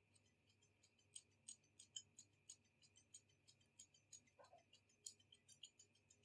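Scissors snipping into the ends of a fringe of hair: a faint, quick, irregular run of small crisp snips, several a second.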